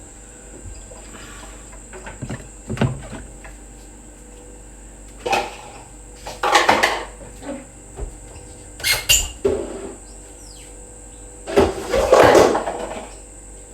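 Intermittent kitchen clatter from cupboard doors and dishware being handled: about half a dozen separate short knocks and rattles, the loudest just before the end.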